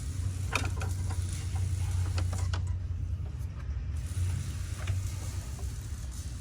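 Scattered clicks and scrapes of hands and tools working a plastic wiring connector loose, over a steady low hum.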